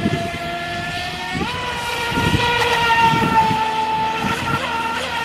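Feilun FT011 4S electric RC boat's brushless motor whining at speed. About a second and a half in, the pitch steps up as more throttle goes on, then holds.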